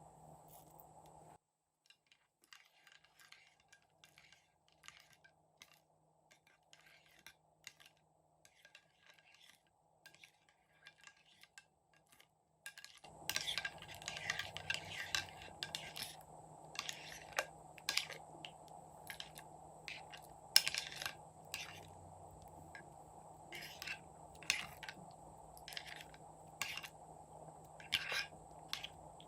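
Light clicks, taps and scrapes of slime-making tools and containers being handled. They are sparse and faint at first, then busier and louder from about halfway, over a steady low hum.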